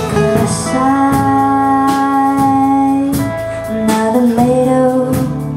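A song with guitar accompaniment and a held sung line, with a steady strummed beat.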